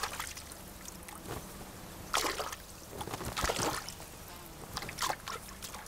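Peregrine falcon bathing in a shallow puddle, splashing water in a series of short irregular splashes, the loudest about two and three and a half seconds in.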